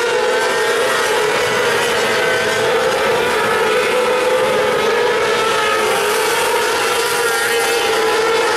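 Several 600cc micro sprint cars racing on a dirt oval, their motorcycle engines running at high revs in a steady, overlapping drone whose pitch wavers up and down as they circle the track.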